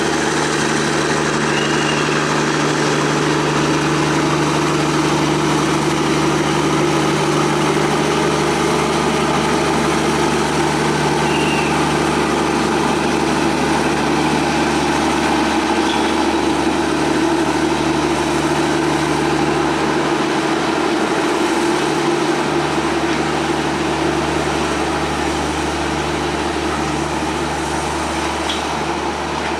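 A train's diesel engine idling steadily at a station: a constant, even hum with no change in speed.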